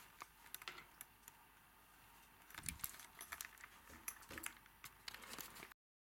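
Faint, irregular small clicks and ticks over a low hiss, a little busier in the second half. The sound cuts off abruptly to dead silence shortly before the end.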